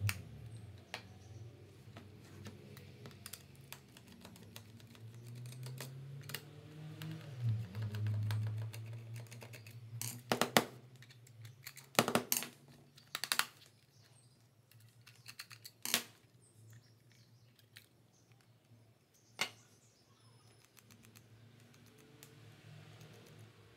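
Plastic case of a small 300 W hot air gun being handled and opened by hand: scattered clicks and taps of plastic parts, with the sharpest, loudest snaps between about 10 and 16 seconds in.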